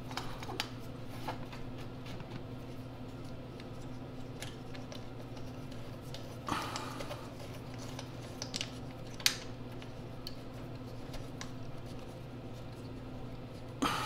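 Socket wrench ratcheting in short, scattered clicks and small metal taps as the carburetor float bowl nut on a Tecumseh 10 HP snowblower engine is snugged down, over a steady low hum.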